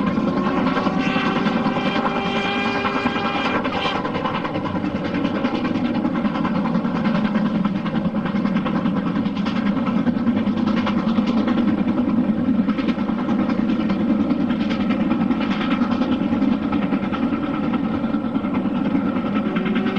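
LMS Black 5 steam locomotive on the move, with a steady mix of running and exhaust noise. A held pitched tone sounds for the first few seconds and then stops.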